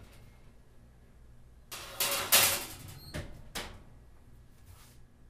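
Metal oven rack sliding and scraping on its rails, loudest about two seconds in, followed by two sharp knocks as the oven door is shut, and a fainter knock near the end.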